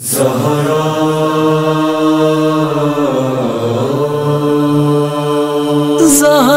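Wordless vocal chant as background music: long held notes over a steady low drone, the pitch shifting about three seconds in, and a solo voice with a wavering, ornamented line coming in near the end.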